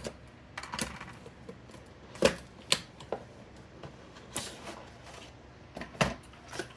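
A Ryzen CPU retail box being opened and its packaging handled: a series of irregular clicks, taps and crinkles of cardboard and plastic, the sharpest about two seconds in and again near six seconds.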